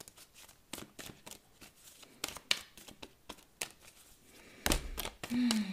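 A deck of oracle cards being shuffled by hand: many soft, irregular clicks of card edges slipping against each other. Near the end, a short hummed 'mm' with falling pitch.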